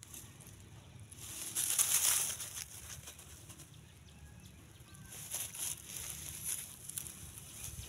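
Rustling in dry straw, loudest about two seconds in, with a few shorter rustles after about five seconds.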